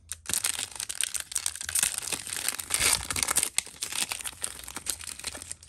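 Crinkling and tearing of plastic trading-card pack wrappers being handled and opened, a dense crackle of many small clicks with louder stretches about two and three seconds in.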